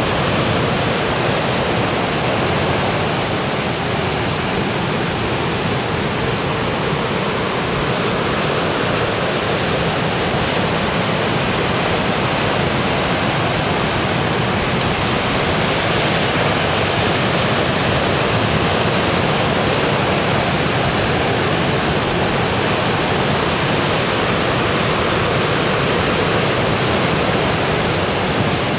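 Surf breaking and churning in the shallows: a continuous, even rushing roar with no separate crashes standing out.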